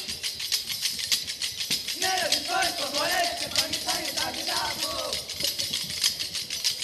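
Kolkali dancers' short wooden sticks clacking against each other in a fast, even rhythm. A voice sings the accompanying song from about two to five seconds in.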